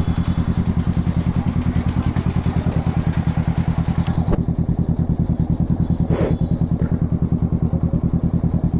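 Kawasaki Z650's parallel-twin engine running at low revs with a steady, rapid low exhaust pulsing while the bike creeps in traffic. A short click about four seconds in and a brief hiss about six seconds in.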